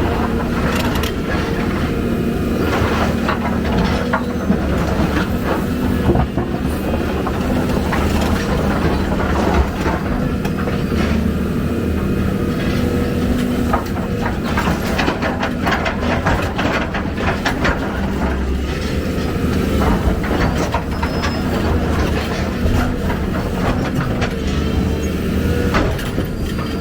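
Excavator's diesel engine running steadily under work, with frequent metallic knocks and clanks throughout.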